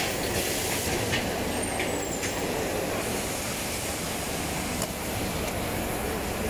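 Packaging-line machinery running steadily, a dense mechanical clatter with a few sharp clicks in the first couple of seconds.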